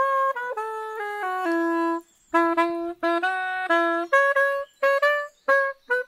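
A solo melody on a straight wind instrument. The first held notes step down in pitch. After a breath about two seconds in, it carries on with lower notes, then higher, shorter notes broken by brief pauses.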